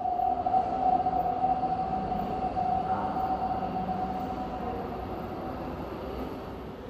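Electronic drone from an immersive light-and-sound art installation: one steady high hum over a low rumble, fading slowly.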